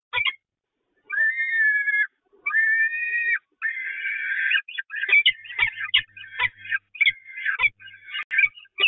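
Peregrine falcons calling in the nest box: two long, drawn-out calls that waver slightly in pitch, then a harsher call, then from about five seconds in a fast run of short calls mixed with sharp clicks.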